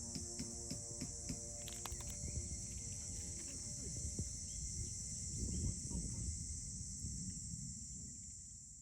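Steady high-pitched insect chorus with scattered light ticks and taps, fading out near the end.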